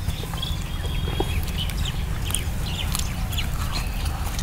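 Eating noises as a man chews a mouthful of naan dipped in curry: scattered short clicks and smacks. A steady low rumble runs underneath, with a few brief bird calls.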